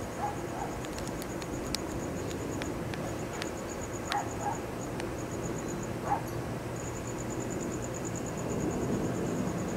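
A few short animal calls: a pair near the start, another pair about four seconds in and a single one about six seconds in. Under them runs a steady high, rapidly pulsing trill with brief gaps, over a low rumble.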